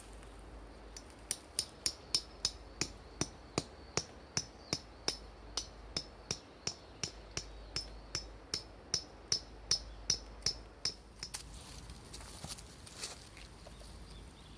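A metal tent peg being hammered into the ground: about thirty even strikes, roughly three a second, each with a short metallic ring, stopping about eleven seconds in.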